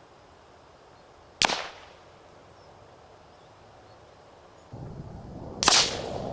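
Two suppressed rifle shots about four seconds apart, each a short sharp crack with a brief tail. The background noise gets louder about a second before the second shot.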